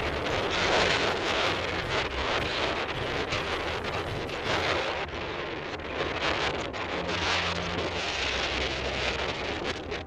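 Strong wind buffeting the microphone, rising and falling in gusts.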